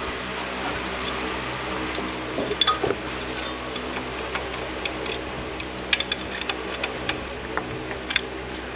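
Scattered metal clinks and taps of hand tools and parts being handled during work on a car's torque mount bracket, over a steady background hum.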